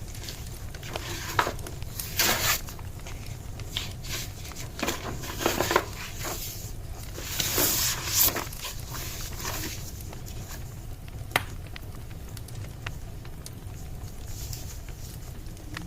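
Wood fire crackling, with irregular sharp pops and a few short louder swells of noise, over a steady low hum.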